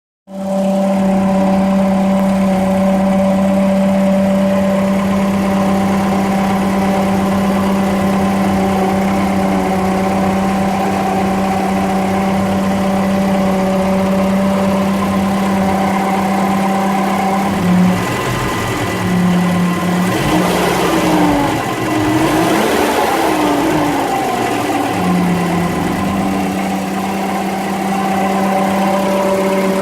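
Citroën DSuper's four-cylinder engine running at idle with a steady whining tone, a noise put down to the water pump. Between about 18 and 25 seconds in, the pitch wavers and glides up and down before settling back to the steady whine.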